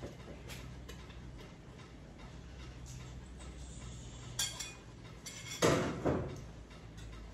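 Kitchenware being handled: scattered small ticks, a metallic clink about four and a half seconds in, then a louder clatter of pots and dishes just under six seconds in, over a low steady hum.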